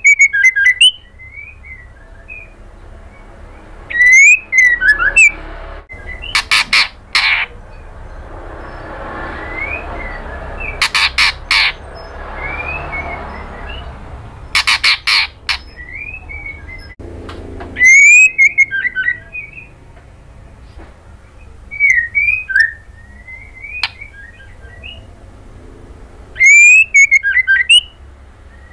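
White-rumped shama (murai batu) calling in loud short bursts every few seconds, sharp rising whistled notes mixed with harsh, rasping chatter.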